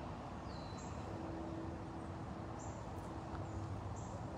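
Quiet outdoor background noise with faint, short high chirps every second or so and a faint steady hum from about a second in.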